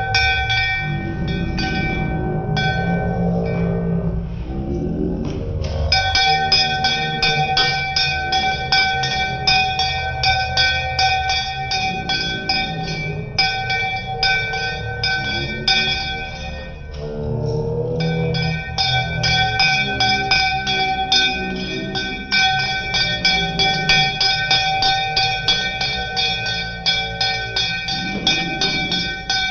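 A puja hand bell rung rapidly and continuously during aarti, stopping briefly a few times, over people singing the aarti hymn.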